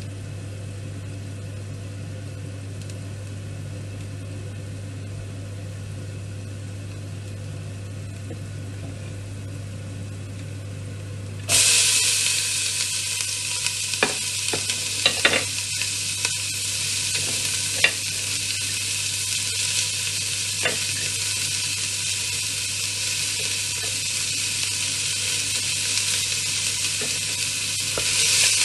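A steady low hum, then about twelve seconds in chopped red onion goes into hot oil in a stainless steel pot and sets off a loud, steady sizzle. A few clicks follow as a wooden spoon stirs it against the pot.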